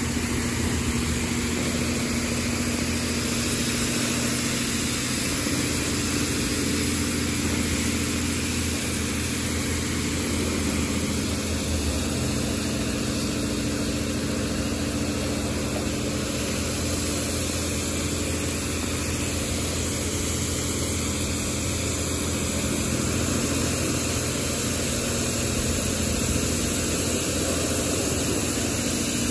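Washworld Revv touchless car wash spraying high-pressure water over a car from its moving arch: a steady hiss of spray with a steady low hum underneath.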